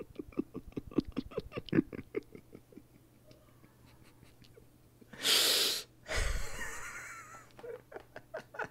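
A man laughing hard and almost silently: a quick run of short, breathy bursts of laughter, a lull, then a loud wheezing gasp for breath about five seconds in, followed by a longer wheezy laugh.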